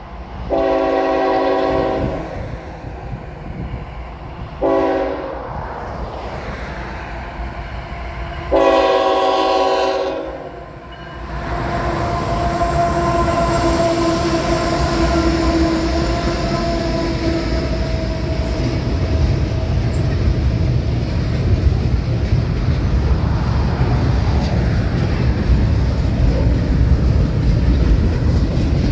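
CSX GE diesel locomotives (an ET44AH and an ES44AH) on an intermodal train: the lead unit's multi-chime air horn sounds a long blast, a short one and another long one for the grade crossing. The locomotives then pass with a steady engine drone, and a low rumble and clatter of the train's cars on the rails builds toward the end.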